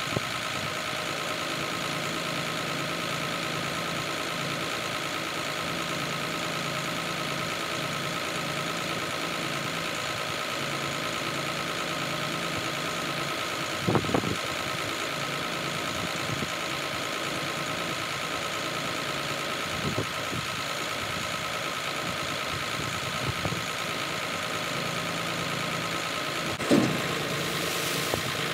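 Mercedes-Benz Actros 3331K's V6 diesel engine idling steadily while the tipper body is lowered. A few short metal clunks break in, a louder one about halfway and the loudest near the end, around when the body comes down onto the chassis.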